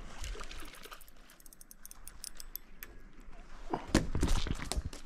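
Light scattered clicking, then a freshly caught jack mackerel landing on the wooden wharf deck and slapping and flapping against the boards, in a quick run of sharp knocks starting about four seconds in.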